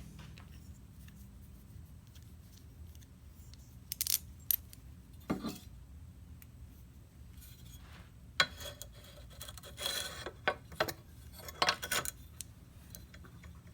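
Small metal hardware (nuts, washers and a bolt) clinking and scraping as it is handled and fitted. The clicks and short rattles come scattered from about four seconds in, thickening near the end.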